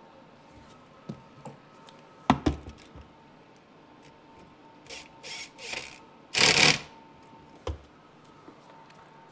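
Small clicks and a couple of sharp knocks of tools and parts against the engine, then a Makita cordless driver run in short bursts to drive a bracket screw, the longest and loudest about six and a half seconds in.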